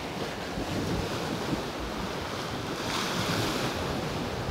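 Steady rush of sea waves on the shore mixed with wind, with gusts buffeting the microphone; the noise swells for about a second starting around three seconds in.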